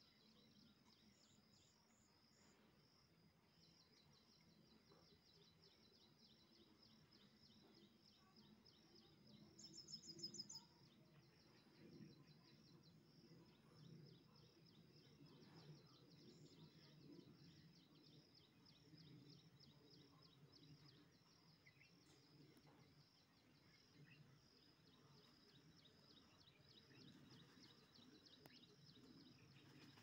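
Near silence: faint outdoor ambience with a steady, fast-pulsing high chirring of insects, and a brief high chirp about ten seconds in.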